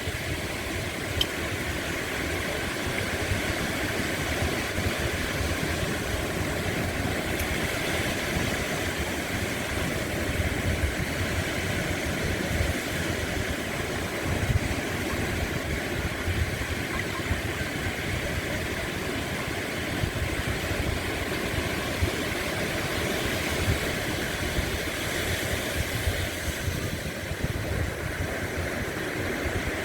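Sea waves washing on the shore: a steady surf noise with a low rumble underneath.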